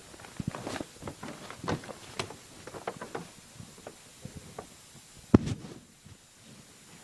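Scattered knocks and shuffles of people moving about on a stage, with one sharp knock about five and a half seconds in, after which it goes quieter.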